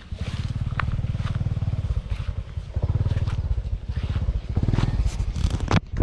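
A small engine running steadily with a rapid low throb, dipping briefly near the end.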